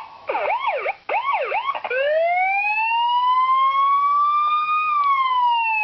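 Electronic police siren ringtone mixing the yelp and the wail: rapid yelping pitch sweeps for about two seconds, then a slow wail that rises for about three seconds and then starts to fall.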